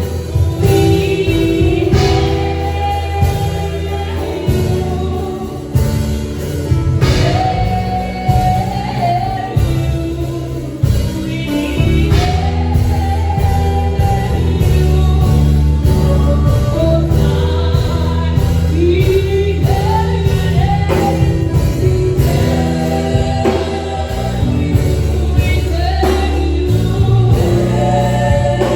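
Gospel song: a choir of voices singing over a band with bass and a steady beat.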